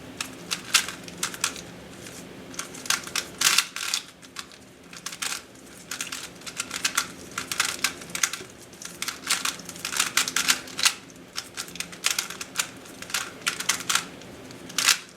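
Plastic layers of a GAN 356i Bluetooth smart 3x3 speedcube clicking as it is turned fast during a timed solve, in quick irregular flurries of turns with short pauses between them.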